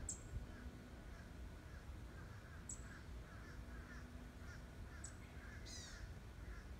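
Birds calling in a tree: a short high chirp every two seconds or so over soft chirping, and one harsh downward call about six seconds in.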